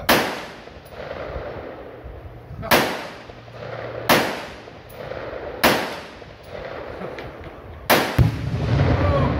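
Five AR-15 rifle shots spaced about one and a half to two and a half seconds apart, each a sharp crack with a short echo. The last shot, near the end, is followed a moment later by a second boom as a Tannerite target detonates, trailing into a low rumble.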